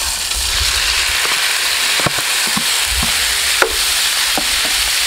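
Marinated beef salpicao going into a hot buttered grill pan on high heat and sizzling loudly and steadily. A spatula stirring the meat gives a few sharp clicks against the pan.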